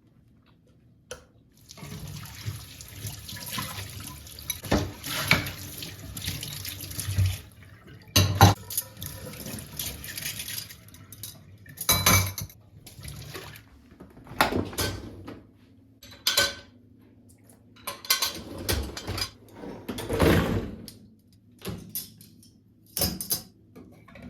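Kitchen sink tap running for about six seconds, then shutting off, followed by a string of separate knocks, clatters and short splashes as things are handled at the sink.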